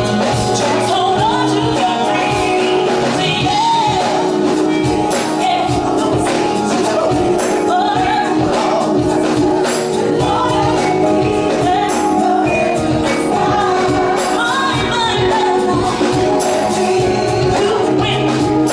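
Gospel vocal ensemble singing live with a full band over a steady beat.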